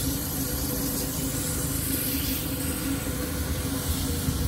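Steady low mechanical rumble of a running vehicle, with a constant hum and a hiss over it.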